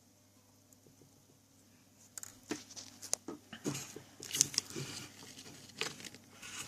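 Handling noises: irregular clicks, taps and rustling as small objects are picked up and worked with by hand, starting about two seconds in.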